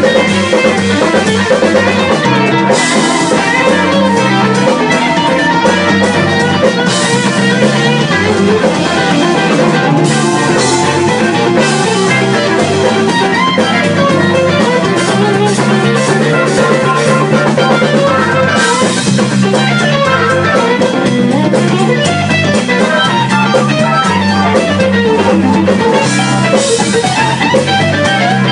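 Live blues band playing: two electric guitars over a drum kit, with cymbal washes coming and going.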